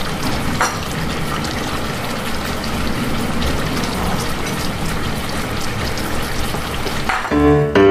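Jaew hon broth boiling in a metal hot pot, a steady bubbling and crackling. Piano music starts near the end.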